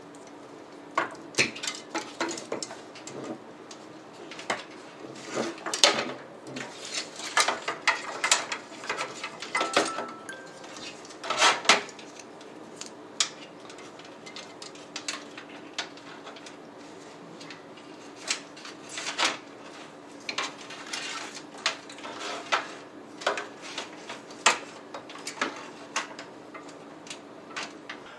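Irregular metallic clicks, clinks and rattles of screws, a screwdriver and fan parts against a computer case while case fans are screwed onto a radiator, over a faint steady hum.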